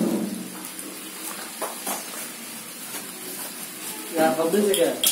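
A person's voice at the very start and again about four seconds in, too indistinct for words. Between them come two light knocks of kitchen handling, over a faint steady high hiss.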